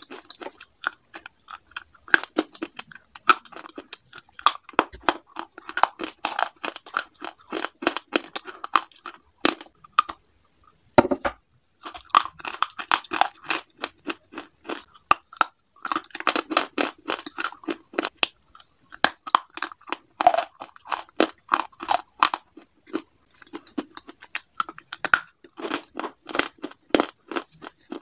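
Close-miked crunching and chewing of slate pieces (slate pencil and slate chunks), a dense run of crisp cracks and crumbles. It pauses briefly about ten seconds in, then comes a sharp snap as a bite breaks off.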